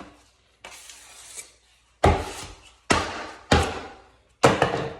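A wide drywall taping knife scraping joint compound across a joint: a short scrape, then four separate strokes, each starting sharply and fading out.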